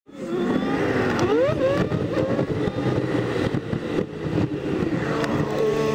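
Smart Roadster Coupé's three-cylinder engine and road noise heard from inside the car, sped up eight times, so the engine note comes as quick high-pitched rises and falls as it revs and shifts.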